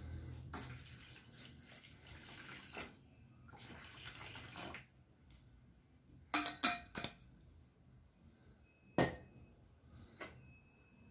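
Water pouring from a stainless steel bottle into an empty plastic foot spa basin for about four seconds. A few sharp metallic clinks and knocks follow, the loudest about halfway through and again a couple of seconds later.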